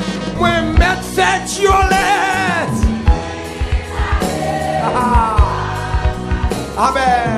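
Haitian Creole gospel worship song: voices singing over a band with bass and regular drum hits.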